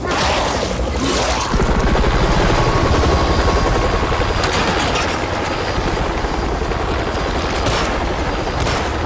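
A helicopter's rotor beats rapidly as it takes off, mixed with gunfire. Sharp pistol shots ring out near the end.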